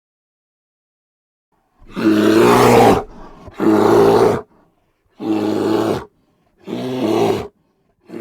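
A large animal roaring four times in a row, each call about a second long with short pauses between, after a silent start.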